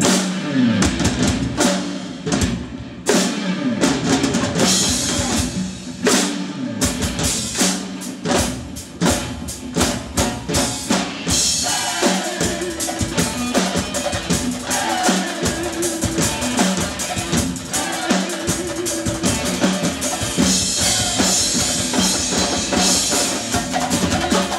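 Marching drumline playing snare drums, bass drums and cymbals: sharp unison hits broken by short pauses in the first few seconds, then a dense, steady groove with cymbal crashes in stretches.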